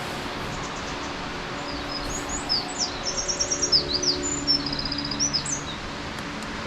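Steady rush of Nachi Falls, with a small songbird singing over it: a quick run of high notes and trills starting about a second and a half in and stopping a second before the end.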